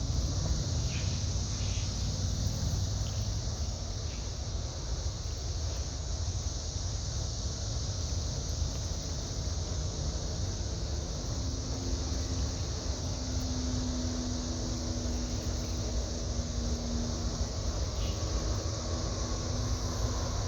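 Steady low rumble of a towboat's engines as it works into a river lock, with a steady high hiss above it. About halfway through, a faint droning hum joins the rumble.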